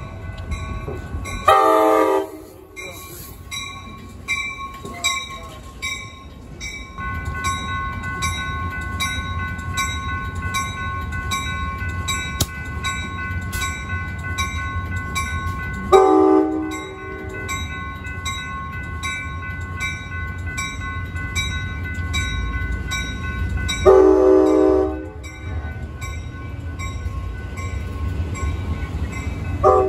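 Amtrak San Joaquins passenger train rolling through the station with a low rumble of wheels on rail and its bell ringing steadily. Short train-horn blasts come about two seconds in, at about sixteen and twenty-four seconds, and again right at the end.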